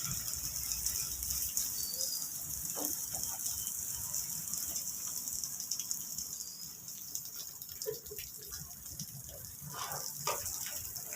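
Steady hiss of falling, rushing water, with a low rumble underneath and a few faint knocks.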